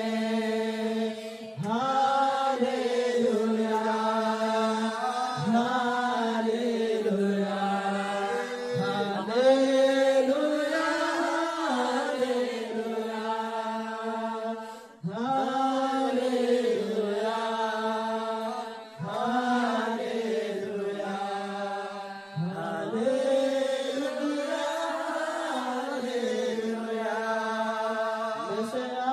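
A group of worshippers singing a Christian worship song together, in phrases of a few seconds with short pauses for breath between them.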